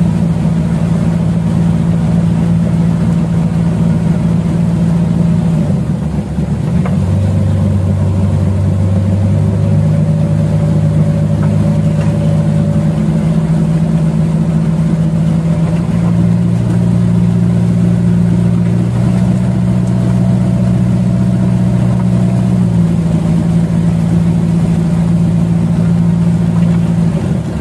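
Engines of two wooden river boats, a motor jukung and the boat pressed against its stern, running together at close quarters. The engine note holds steady but steps up and down in pitch several times.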